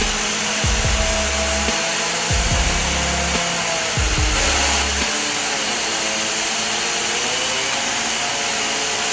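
Steady, loud machine noise with a wavering tone, typical of a saw or engine running under load, over background music with deep bass notes that stop about five seconds in.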